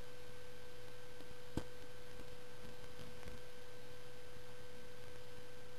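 Steady electrical hum carrying one constant tone, with faint hiss, and a single faint click about a second and a half in.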